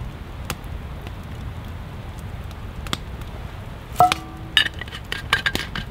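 A stainless-steel thermos and its metal cup clink together sharply about four seconds in, with a brief metallic ring. A quick run of clicks and rattles follows as they are handled. Under it, an open campfire crackles with occasional sharp pops.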